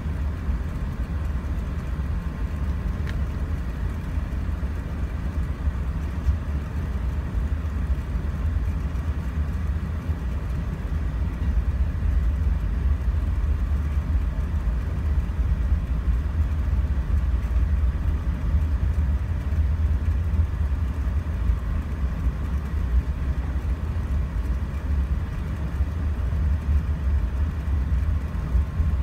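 Cabin noise inside an Airbus A380 taxiing: a steady low rumble from the wheels and the Rolls-Royce Trent 900 engines at low thrust, with a faint steady whine. It gets a little louder about twelve seconds in.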